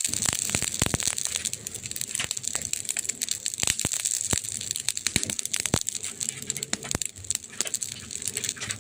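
Wood fire crackling, with frequent sharp pops and snaps at irregular spacing over a steady high hiss.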